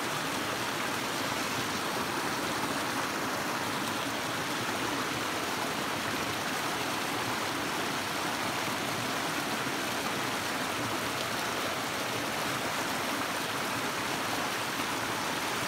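Small creek running over rocks in a shallow riffle and little cascade: a steady rush of water.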